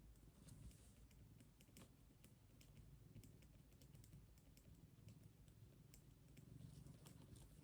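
Faint typing on a keyboard: quiet, irregular key clicks.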